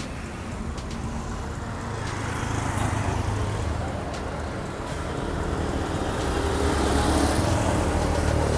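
Road traffic: a motor vehicle's engine running with a steady low hum, getting louder over the last few seconds as it draws closer.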